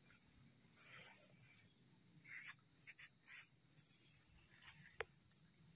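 Faint, steady high-pitched insect trilling, with soft scuffs and rustles of hands and bare feet moving on tree bark during a climb down, and a single sharp click about five seconds in.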